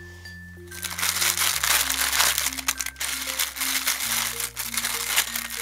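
Plastic packaging crinkling and rustling as a squishy package is handled and opened, starting under a second in, over background music with slow held notes.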